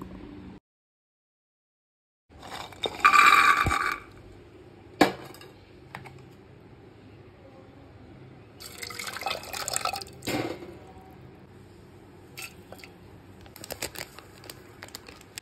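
Ground masala paste and water poured from a steel mixer-grinder jar into a pressure cooker, splashing, with sharp clinks of the jar against the cooker. A loud rushing burst of about a second and a half comes a few seconds in.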